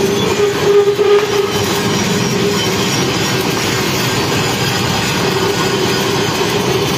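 Stick (arc) welding on a steel truck wheel rim: the arc crackling and hissing over a steady hum, with a couple of louder surges about a second in.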